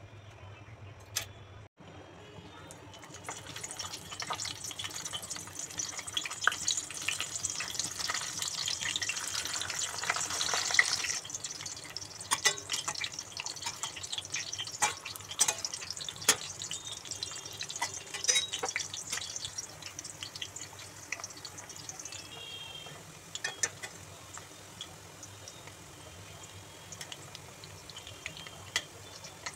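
Kababs shallow-frying in hot oil in a steel pan: a steady sizzle full of crackles and spits, loudest several seconds in and easing after about the middle. Now and then a metal slotted spoon or tongs clink against the pan.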